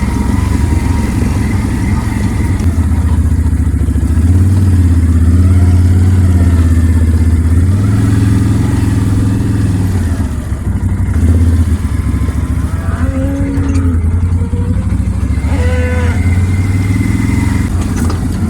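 Small motor vehicle engine running while being ridden across the farm, getting louder and pulling harder about four seconds in, then easing back.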